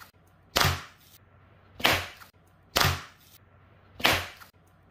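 Crinkly plastic balloon film squeezed and rubbed between a child's palms, making four short swishes about a second apart.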